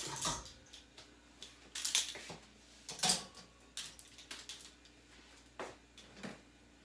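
Plastic clothes hangers clattering as they are hung on a wire shelf rod: a string of sharp clicks and rattles, loudest about two and three seconds in.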